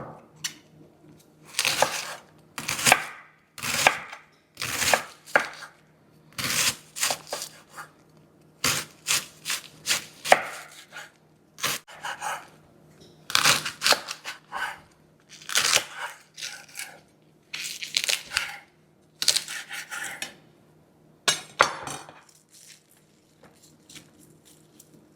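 Kitchen knife mincing garlic cloves: irregular runs of quick chops with short pauses between.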